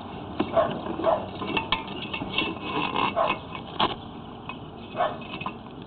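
Sewer inspection camera's push cable being pulled back up a 4-inch vent pipe, with irregular scrapes and knocks as the rod and camera head rub against the pipe.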